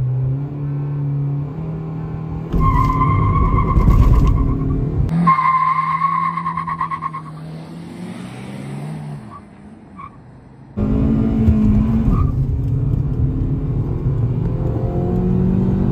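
Hyundai Verna 1.5 engine held at rising revs for a drag-race launch, then tyres squealing for a couple of seconds as the car pulls away. Later the engine accelerates with its pitch climbing near the end, heard from inside the cabin.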